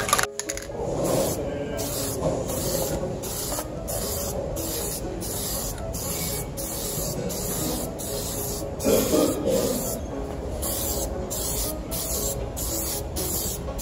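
Aerosol spray can of primer hissing in short repeated bursts, a little more than one a second, as it is swept over a welding helmet.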